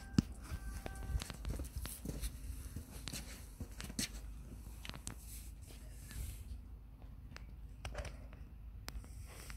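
Faint outdoor ambience: a low rumble with scattered light clicks and rustles from a handheld phone being moved, and a brief faint high tone about a second in.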